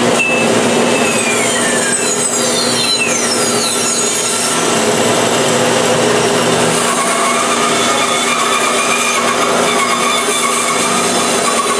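Shop tool noise from metalworking: a harsh, steady rasping, with several squeals falling in pitch in the first few seconds.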